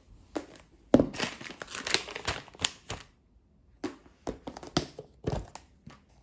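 Crinkly plastic packaging handled and torn open: irregular sharp crackles and rustles, loudest about a second in, pausing briefly midway before more crinkling.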